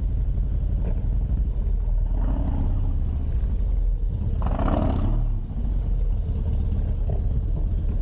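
2004 Harley-Davidson Dyna's Twin Cam 88 V-twin running under way through a 2-into-1 exhaust, with a brief rise in the engine note about four and a half seconds in.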